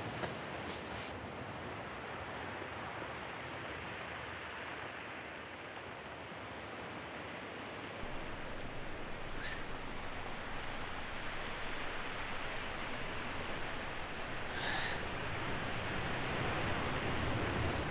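Beach ambience: the steady noise of ocean surf and wind, getting a little louder about eight seconds in, with a couple of faint, brief high sounds later on.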